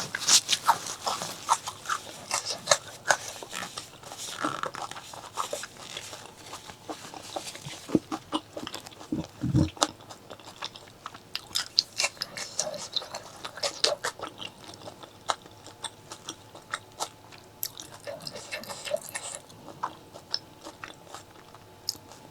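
Close-miked eating sounds: a person chewing and biting food, with many short wet clicks and crackles. A brief low thump comes about halfway through, and the chewing thins out near the end.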